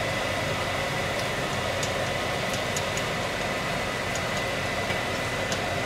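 Kitchen exhaust fan over the stove running, a steady rushing hum with a faint high whine, and a few faint ticks scattered through it.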